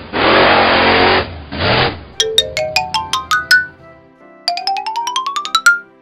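Cartoon sound effects over soft background music: a loud hissing whoosh for about a second and a shorter one after it, then two quick rising runs of short plucked, bell-like notes.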